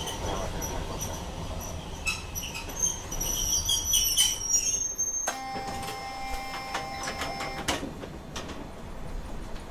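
Toyohashi Railway 3200-series tram running with a low rumble and scattered high-pitched squeals through the first half. About halfway in, a steady buzzing tone starts and holds for about two and a half seconds, then ends with a knock.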